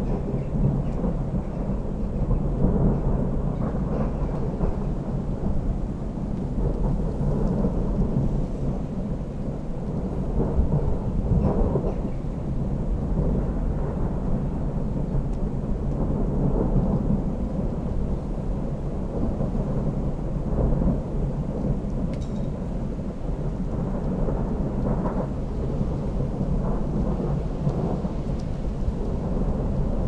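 Thunder rumbling on and off in long rolls that swell and fade several times, over the steady sound of rain.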